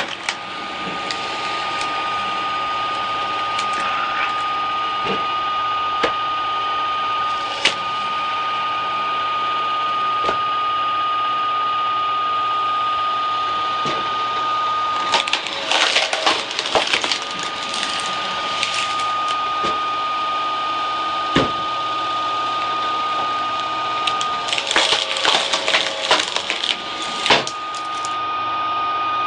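Screw (cone) log splitter driven by a 7.5 kW low-speed electric motor, running with a steady whine. Twice, midway and near the end, the spinning cone bites into a log with spells of cracking and splintering wood, and there are single sharp cracks in between.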